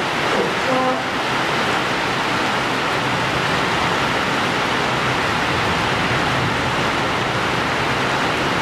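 Heavy rain pouring down steadily, an even rushing hiss, with a low hum from the departing electric train underneath. A few short tones sound in the first second.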